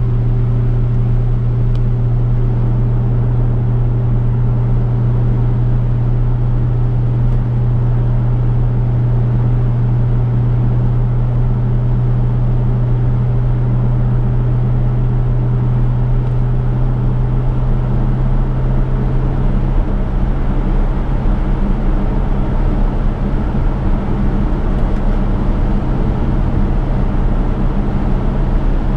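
Chevrolet V8 engine droning steadily at cruising speed, over constant tyre and road noise. Its low hum eases slightly about two-thirds of the way through.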